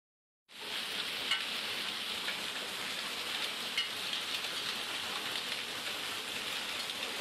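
Heavy rain falling steadily in a downpour, starting about half a second in, with a few sharp ticks of single hard impacts.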